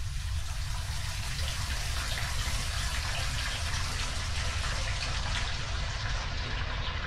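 Bathtub faucet running, water pouring steadily from the spout into the tub, over a steady low rumble. The water sound grows duller near the end.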